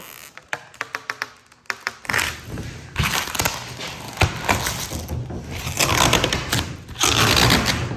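Thin, sticky plastic film crinkling and crackling as it is pulled away from itself: a run of sharp clicks at first, then denser crackling from about two seconds in.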